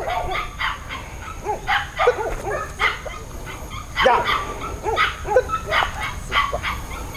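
Belgian Malinois making short, high yips and whines over and over, eager for the ball it is waiting for a command to bite.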